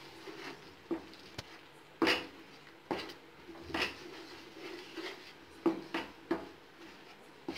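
Wooden spatula stirring thick spinach gravy in a metal pan, scraping and knocking against the pan in irregular strokes, the sharpest about two, three and six seconds in.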